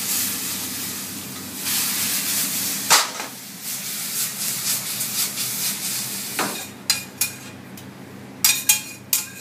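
Pasta and spanner crab sauce sizzling in a hot frying pan as it is stirred, with a sharp knock about three seconds in. From about seven seconds the sizzle fades and metal utensils clink several times against the pan.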